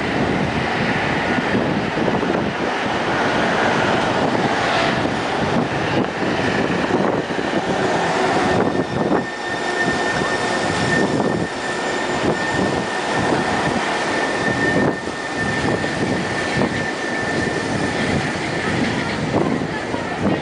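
Rubber-tyred automated trains of the elevated Taipei Metro Muzha line running along the viaduct: a continuous rumble and rush of noise, with a steady high whine from about eight seconds in.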